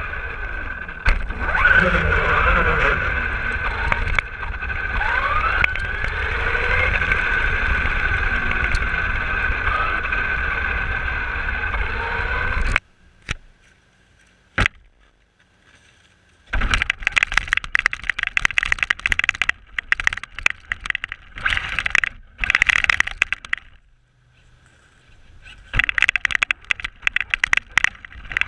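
Traxxas RC car heard from on board: its motor and drivetrain whine steadily over tyre and wind rumble while it speeds along pavement, the pitch sliding up and down with the throttle. About halfway through it cuts to near quiet with a couple of clicks, then comes back in choppy bursts of whine as the wheels spin through snow.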